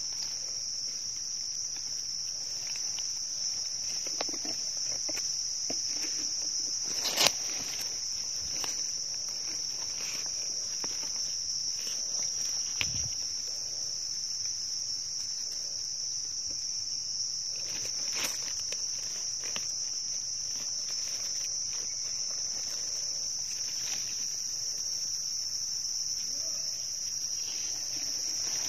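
A steady high-pitched drone of insects, with scattered clicks and rustles of dry leaves and soil as mushrooms are dug out by knife and hand; two clicks, about 7 s and 18 s in, stand out.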